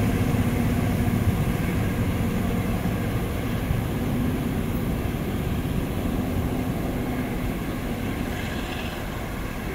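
Diesel locomotive of a Long Island Rail Road work train running with a steady low drone and rumble, slowly fading as the train moves away.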